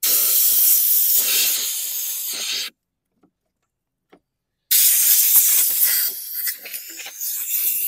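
Compressed-air blowgun blasting in two long hissing bursts, each about three seconds long with a two-second pause between, blowing grass debris off the mower's pulley and spindle under the deck.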